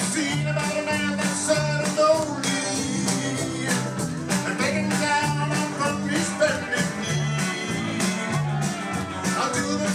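Live rock band playing an upbeat song with a steady beat: electric guitars, bass, drums and keyboard under a sung lead vocal, with a bouncing bass line.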